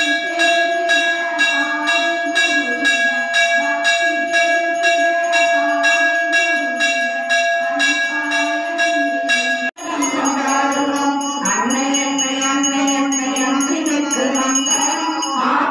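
Temple bells ringing steadily at about two strikes a second during the aarti lamp-waving, with a low wavering tone underneath. About ten seconds in the sound cuts out for an instant and comes back as a crowd of voices chanting together, the bells still ringing above them.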